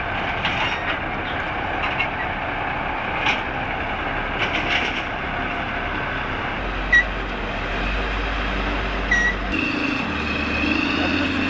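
Heavy tracked machine, most likely a bulldozer, running under a steady rattle with scattered knocks and clanks; a steadier droning note joins in near the end.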